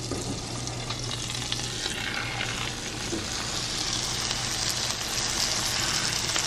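Butter and ribeye steak sizzling in a hot skillet on the stove, a steady sizzle that grows brighter about four seconds in.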